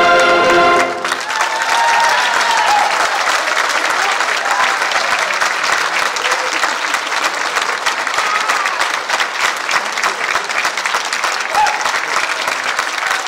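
A saxophone ensemble's final held chord cuts off about a second in, and the audience breaks into steady applause with a few whoops.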